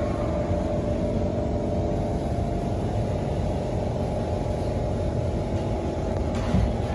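Steady low rumble and hum inside a Kawasaki Heavy Industries C151 MRT train car, with a faint whine fading out in the first second. A brief thump comes near the end.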